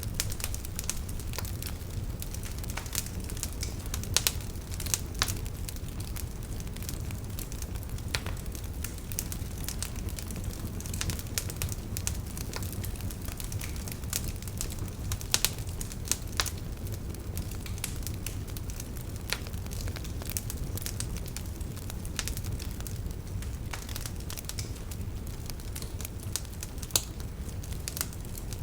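Wood fire burning in a fireplace: irregular sharp crackles and snaps, a few louder pops among them, over a steady low rumble of the flames.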